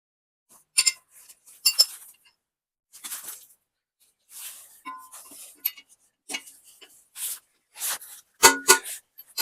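Irregular metallic clinks and clicks of hand tools on a stump grinder's cutter wheel as its tooth bolts are worked, some ringing briefly; the loudest cluster comes near the end.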